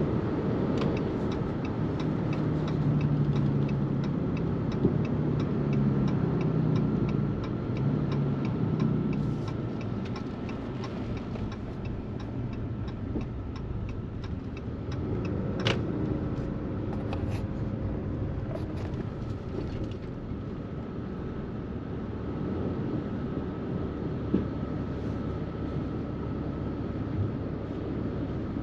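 Vehicle driving on the road towing a loaded trailer: steady engine and road rumble, with a regular ticking that stops about two-thirds of the way through and an occasional single clunk.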